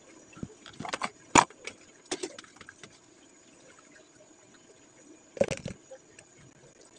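Plastic clicks and knocks as a plastic tub is tipped and shaken over plastic cups while topping is poured in, with a sharp knock about a second and a half in. A louder short clatter comes near five and a half seconds as the tub is moved aside.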